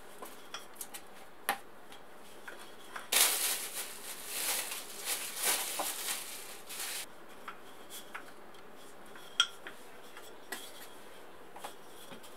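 Plastic cling film crinkling as it is peeled off a ball of dough, starting about three seconds in and lasting about four seconds. Scattered light clicks and taps before and after.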